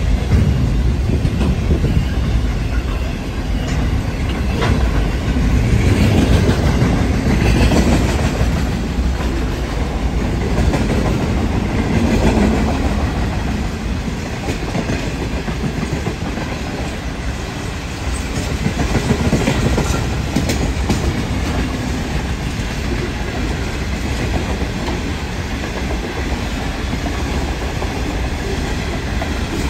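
Loud rumble of a freight train of container wagons rolling past close by, its wheels clicking over the rail joints now and then.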